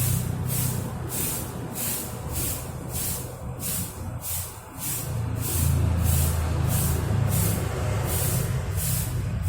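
Broom sweeping a floor: rhythmic swishing strokes, about two to three a second, over a low steady hum.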